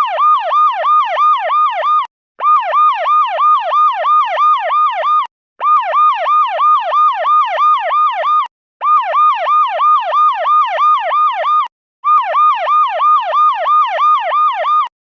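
Electronic police siren ringtone: a fast yelp, sweeping down and back up about three times a second. It comes in runs of about three seconds, broken by short silent gaps.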